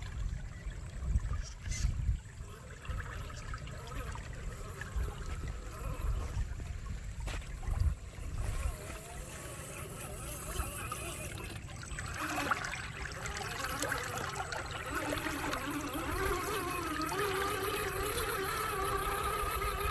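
Water trickling and splashing as a radio-controlled car drives through it. A wavering whine joins in about twelve seconds in.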